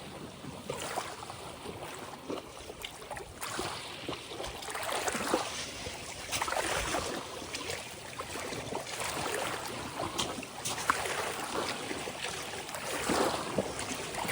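Ocean waves washing in and splashing, in uneven surges every second or two with small sharp splashes among them.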